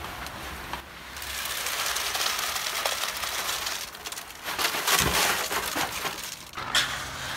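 Wet gravel-mix concrete sliding and spilling out of a tipped wheelbarrow into a wooden form: a gritty scraping hiss that starts about a second in, is loudest around the middle, and stops shortly before the end.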